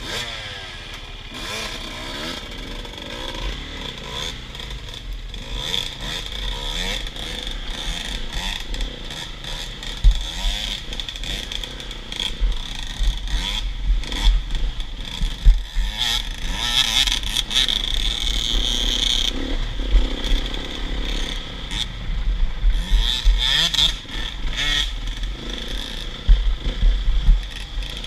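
KTM enduro motorcycle engine revving up and down while riding a rough dirt trail, with frequent knocks and clatter from the ride.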